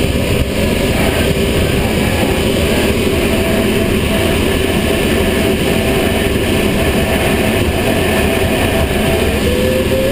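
Steady, loud rush of air streaming past a sailplane's canopy and cockpit at flyby speed. A thin tone rises in pitch near the end.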